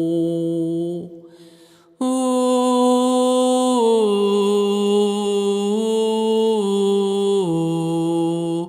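A single voice sings long, wordless held notes, improvised vocal toning in the manner of a chant. A note ends about a second in and is followed by a short breath pause. About two seconds in a new held note begins and moves slowly in steps, down, then up, then down twice, before ending near the end.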